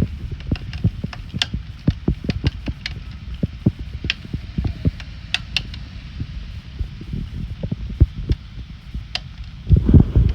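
Hurricane rain with large drops striking a surface close to the microphone in irregular taps and low thuds over a steady low rumble. Near the end a louder low rumble swells up.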